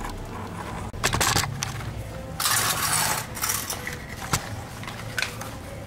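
Handling noise: a few sharp clicks and light clinks, with a rustling scrape lasting about a second in the middle.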